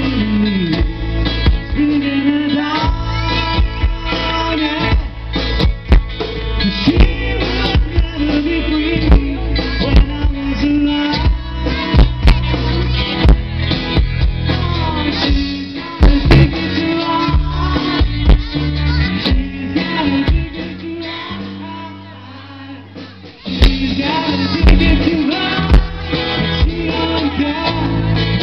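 Live 1960s-style rock band playing: electric guitars, bass and drums with singing. About three-quarters of the way through the band drops to a quieter passage for a few seconds, then comes back in full.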